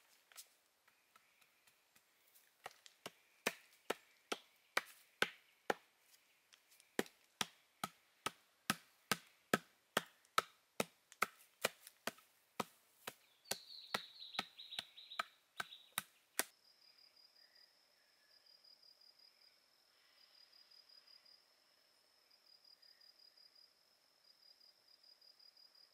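Chopping bamboo with a blade, steady strokes about two a second, which stop suddenly about two-thirds of the way through. After that an insect's high, thin trill pulses on and off.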